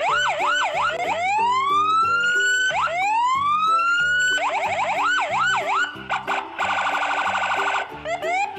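Electronic police siren cycling through its tones: quick yelping sweeps, slow rising wails that level off, and about two-thirds of the way in a rapid buzzing warble lasting about a second, before another rising wail.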